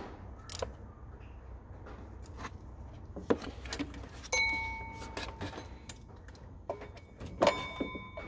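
Metal hand tools clinking and tapping while the water pump bolts are tightened in a diagonal pattern. There are irregular clicks throughout and two ringing metallic clanks, about four seconds in and near the end.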